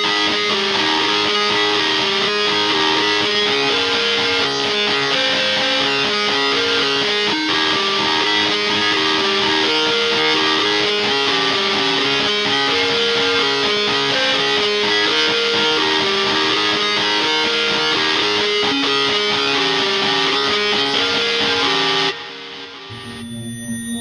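Korg wavestate synthesizer playing its 'Transistor Lead' preset: a lead sound over a repeating, stepping pattern of notes. It stops about 22 seconds in, and a quieter, different synth tone begins near the end.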